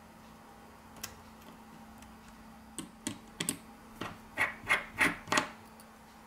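Small hand tools clicking against the charging port board of a Samsung Galaxy A40: a precision screwdriver turning out a board screw and a spudger working a flex connector. One click comes about a second in, then a quick run of sharp clicks and taps, loudest in the second half.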